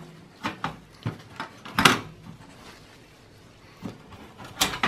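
Scattered clicks and knocks of a desktop PC motherboard being handled inside its sheet-steel case, the loudest about two seconds in and another near the end.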